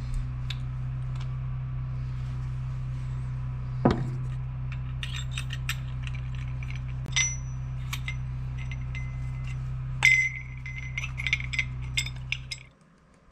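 Metal parts of a K24 turbocharger clinking and clicking as the center housing, shaft and turbine wheel are handled and fitted, with a sharper knock about 4 s in and another about 10 s in, followed by a brief metallic ring. A steady low hum runs underneath and cuts off near the end.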